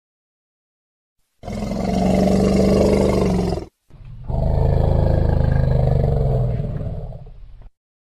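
Two long, deep roars from a big cat, the first about two seconds long and the second longer, with a short break between them.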